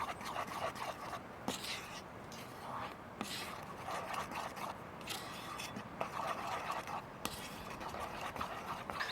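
Irregular scraping strokes of a utensil stirring hair-lightening powder and developer into a paste in a bowl.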